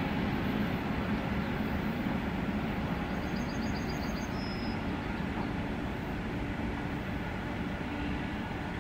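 Electric train running on the track, a steady rumble that slowly fades.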